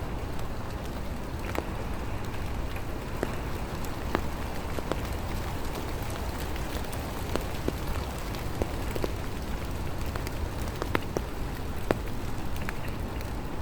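Rain falling: a steady hiss over a low rumble, with many scattered sharp ticks of drops striking nearby surfaces.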